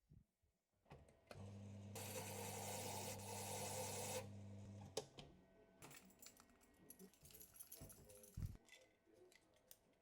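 Key-cutting machine: its electric motor starts with a steady hum, the cutter grinds into a key blank for about two seconds, and the motor runs down. Then scattered light clicks and taps of the key being handled and unclamped.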